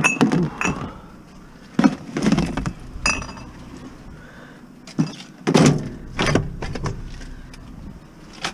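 A string of sharp metallic clunks and rattles, a few ringing briefly, as scrap metal is shifted and loaded into a vehicle.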